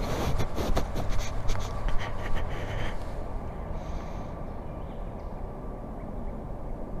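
Footsteps crunching on sandy dirt and leaf litter, a quick run of scratchy steps in the first three seconds, then quieter outdoor background.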